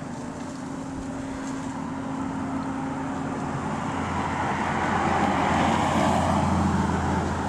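A motor vehicle going by, its engine and road hum swelling to a peak about six seconds in and easing off near the end.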